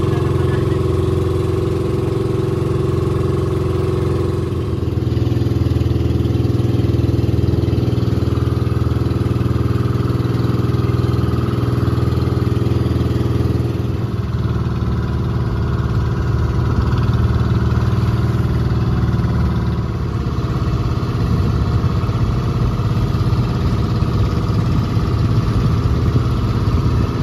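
A motor engine running steadily at an even speed, a continuous drone that shifts slightly about five seconds in.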